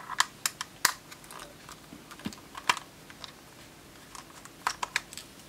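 Small screwdriver turning a metal self-tapping screw out of a handheld meter's plastic case, with irregular sharp clicks and ticks of the tool, the screw and the plastic housing.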